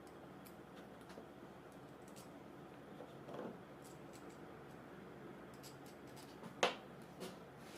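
Scattered small clicks and taps of hand work on a starter motor, with one sharper click near the end.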